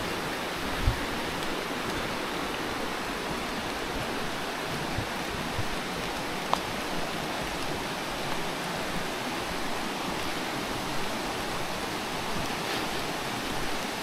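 A rushing stream: a steady wash of water noise, with a few soft low thumps and one sharp click about six and a half seconds in.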